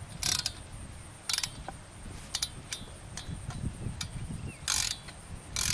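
Ratchet wrench clicking in short bursts on each back-swing, about five bursts, as it snugs the set screws of a steel cap on a support pipe; the screws are drawing up firm.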